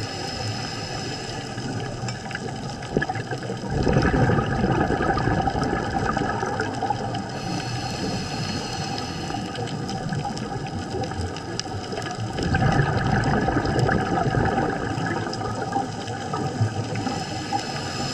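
Scuba diver's exhaled bubbles heard underwater: two long bursts of bubbling, about four seconds in and again about twelve seconds in, with quieter stretches of breathing noise between.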